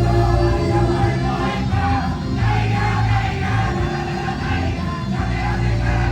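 Live pop-rock song with singing, played loud and continuous over a live venue's sound system.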